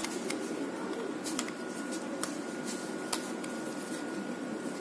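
A few scattered light clicks and taps as plastic attachment parts are handled and fitted against the metal head of an electric meat grinder, over a steady background hum.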